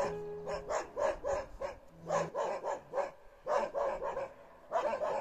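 Two dogs barking in a rapid, unbroken run of about three to four barks a second.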